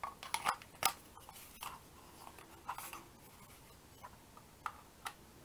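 Scattered small clicks and taps from a precision screwdriver being handled: a hex bit pushed into its plastic handle, then the tip set against the tiny case screws of a portable MiniDisc player. The clicks are loudest in the first second.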